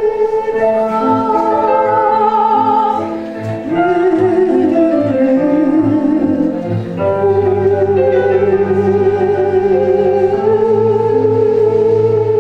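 Live music: sustained, wavering melodic tones held over regularly pulsing low notes, with the melody gliding in pitch midway.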